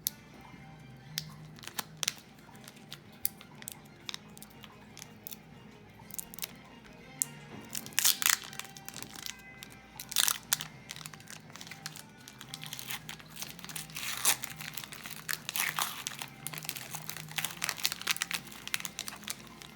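Trading card pack wrapper being crinkled and torn open by hand, in irregular crackles that come thickest and loudest about halfway through and again near the end, over quiet background music.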